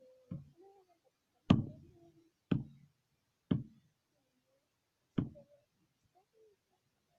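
Crunchy slime being pressed and handled, giving five sharp pops or crunches roughly a second apart, the second the loudest, with faint squelches between them.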